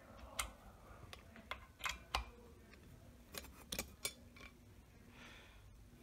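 Thomas Industries ceiling fan with a K55-type motor running slowly on a transformer-based wall control's medium-low setting: a faint steady hum, with about ten light, irregular clicks over the first four seconds or so.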